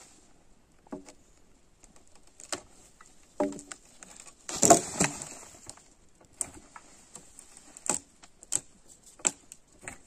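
Irregular knocks and clatters of hand demolition work on old timber and stone. The loudest clatter comes about halfway through.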